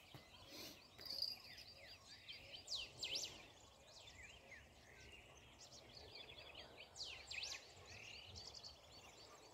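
Several birds calling and chirping at once, faint: quick rising and falling whistled notes and short rapid trills overlapping one another, over a low background hiss.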